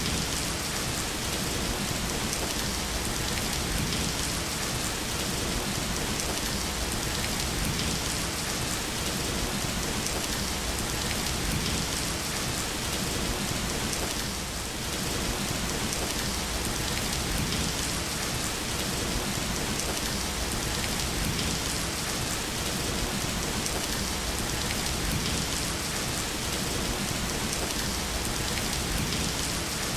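Steady rain falling on a surface: an even, continuous hiss of drops, dipping slightly in level about halfway through.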